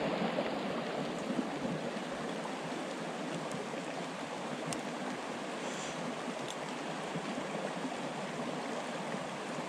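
A small creek running steadily over rocks, an even rushing hiss, with a couple of faint ticks near the middle.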